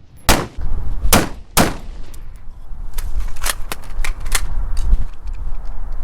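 Close gunshots at a shooting range: three loud reports in the first two seconds, the last two quickly one after the other, followed by a run of fainter shots at an irregular pace.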